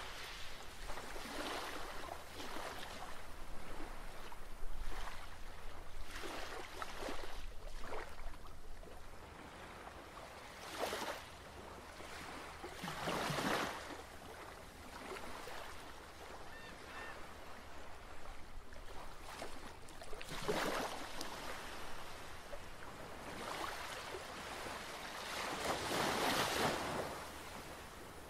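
Ocean waves washing in, swelling into a louder rush every few seconds and ebbing away, over a faint low steady hum.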